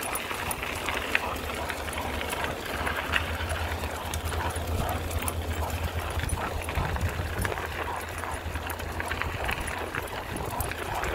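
Wheels rolling over a gravel dirt path with wind rumbling on the microphone, and the footfalls of two German Shorthaired Pointers running on leash alongside.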